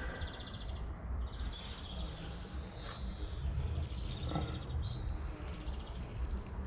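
Insects trilling in short runs of a high, fast-pulsing buzz, over a low rumble.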